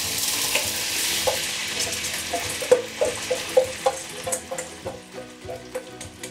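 Soaked glutinous rice sizzling as it is tipped into hot oil in a frying pan, the sizzle loudest at first and dying down. In the middle, a wooden spatula scrapes and taps against the stainless steel bowl in a quick run of ringing taps.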